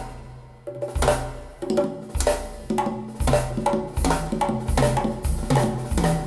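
A song with a drum kit and a deep bass line, played through Radiotehnika S-90 loudspeakers.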